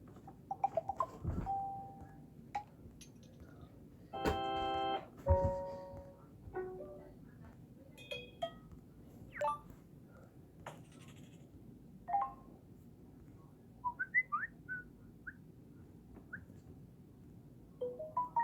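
Samsung Galaxy J7 Prime notification tones played one after another: about a dozen short electronic chimes and blips, each under a second, with short pauses and a faint steady hiss between them.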